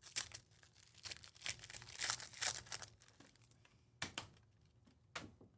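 Foil trading-card pack wrapper being torn open and crinkled, in a run of rustling tears over the first three seconds, followed by two short, crisp sounds about four and five seconds in.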